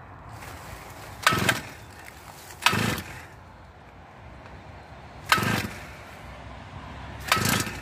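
Chainsaw being pull-started four times, each a short whirr of the starter cord turning the engine over, with the engine not catching.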